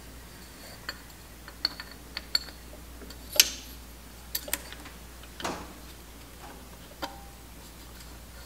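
Scattered light metallic clicks and taps of small tools and parts being handled while piston pins and their retaining clips are fitted to the pistons. The sharpest click comes about three and a half seconds in, and one near the end rings briefly.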